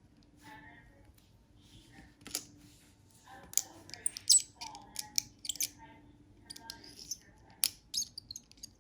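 Scattered light clicks and taps of plastic Gel-X nail tips being handled against fingernails, irregular, with the sharpest click about four seconds in.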